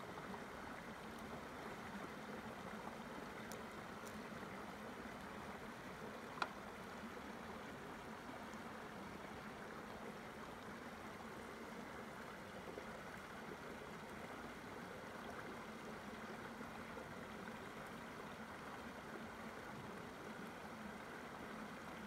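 Shallow stream running over rocks, a steady rush of water. A single sharp click sounds about six and a half seconds in.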